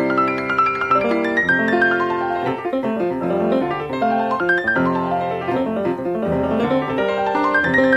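Background piano music: sustained chords under flowing runs of notes that climb and fall again every second or two.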